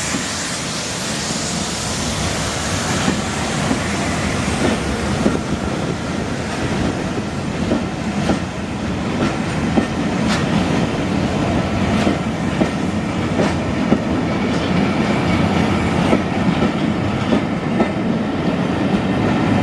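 Steam-hauled train of Pullman coaches rolling out of the station, wheels clicking irregularly over rail joints under a steady rumble that grows slowly louder.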